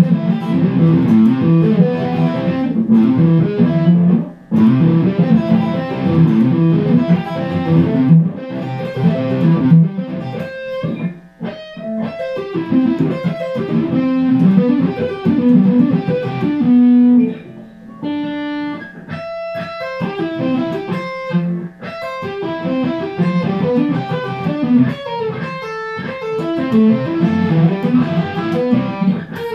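Hardluck Kings Spider electric guitar, amplified, with its original stock pickups: fast shredding runs and riffs, with a few single picked notes about two-thirds of the way through.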